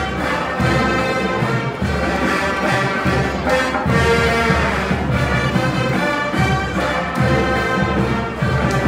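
Marching band playing, brass carrying the tune over drums.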